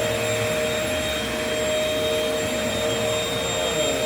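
Vacuum cleaner motor running steadily, a constant rushing noise with a steady whine.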